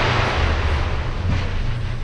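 Fireworks display: the crackle and echo of aerial shell bursts fading away over a steady low rumble, with one faint crack partway through.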